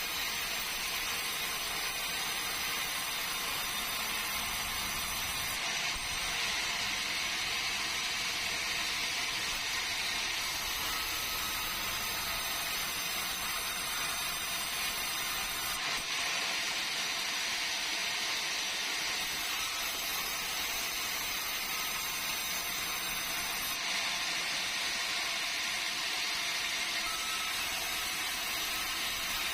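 Sawmill saw running through meranti timber: a steady hiss of sawing with a high whine that shifts pitch several times.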